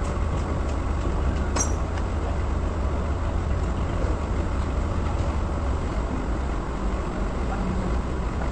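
Steady low mechanical rumble, like a machine running, with one sharp metallic click about a second and a half in.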